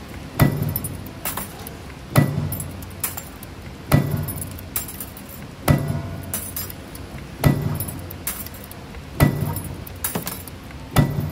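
CNC universal wire-bending machine (ST35-11) with a punching device running its automatic cycle on flat wire: a sharp metallic strike about every 1.8 seconds, each followed by a short low hum, with light metallic clinking and ticking in between.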